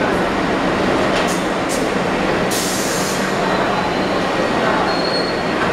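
New York City Subway R62A train running into the station along the platform: a loud, steady rumble of wheels and running gear. Short high hisses come at about one and a half seconds, and a longer one comes at about two and a half seconds. A faint high squeal is heard near the end.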